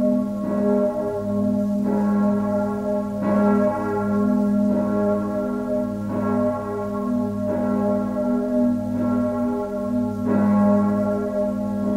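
Full peal of six bronze church bells cast by Schilling in 1958, tuned A♭–B♭–D♭–F–A♭–B♭, all swinging together. Their strikes fall irregularly and overlap about every second or so over a deep, sustained hum.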